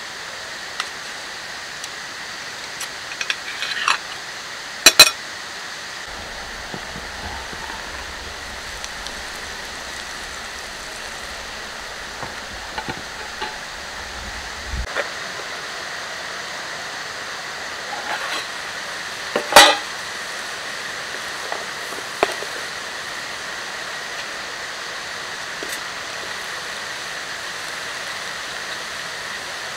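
Metal cookware clinking and scraping as a spoon stirs in a steel camp mug and pans are handled on a small wood-burning stove, with two loud clanks, about five seconds in and just before twenty seconds. Under it runs a steady rush of river water.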